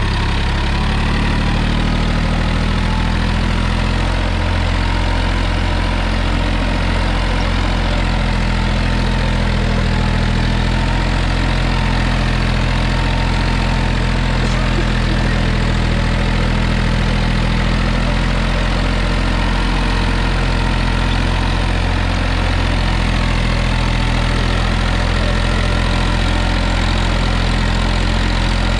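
Massey Ferguson 245 DI tractor's three-cylinder diesel engine running steadily under load at about 1800 RPM in low second gear, pulling a 7-foot rotavator that churns through the soil.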